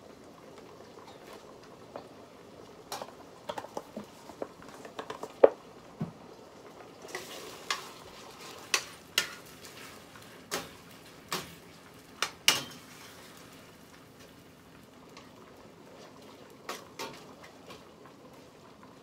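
A cooking utensil stirring in a pot, giving irregular clinks and knocks against the pot's sides over a faint steady bubbling of simmering food.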